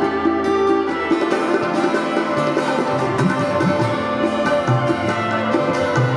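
A live band playing an instrumental passage of a Punjabi worship song, with sustained melodic instruments over a steady percussion beat.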